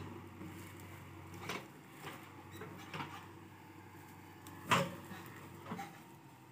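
JCB 3DX backhoe loader's diesel engine running steadily, with several sharp knocks and clunks from the working machine, the loudest about three-quarters of the way through.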